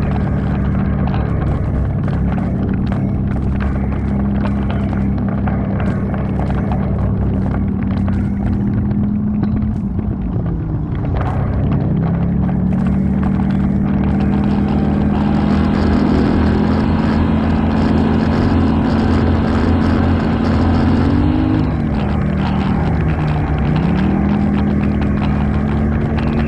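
ATV engine running steadily under throttle, its pitch dropping as it eases off about eleven seconds in and again near the twenty-three second mark, then climbing back.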